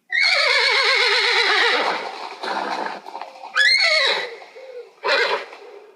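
Horse whinnying: one long quavering call of about two seconds that falls in pitch, then a shorter call about three and a half seconds in and a brief one near the end.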